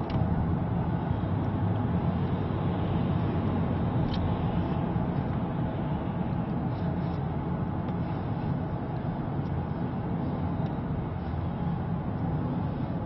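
Cabin noise of a moving car: tyres and engine make a steady low rumble.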